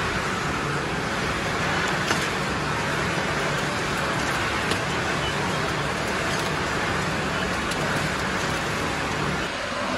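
Steady drone of a tile factory's packing line: conveyors and machinery running, with a low hum and a few faint clicks.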